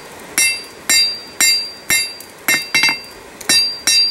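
Hand hammer striking red-hot half-inch rebar on an anvil, about two blows a second. Each blow rings with a bright metallic tone.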